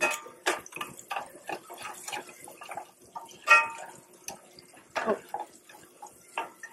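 Metal tongs clinking and scraping against a stainless-steel sauté pan as sliced onions are stirred: a string of sharp clinks, a few ringing briefly, over a light sizzle from the pan.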